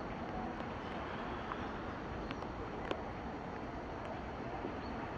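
Distant approaching train heard as a steady noise with no clear rhythm, with a few faint clicks.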